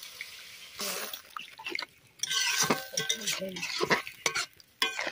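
Fish curry sizzling in a hot metal wok over a wood fire for about the first second. Then a metal spatula stirs through it, with scraping and a few sharp clinks against the pan.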